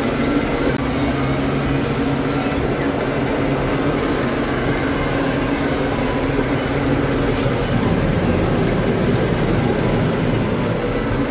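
New Holland tractor's diesel engine running steadily while driving with a trailer in tow, a constant low hum without pauses.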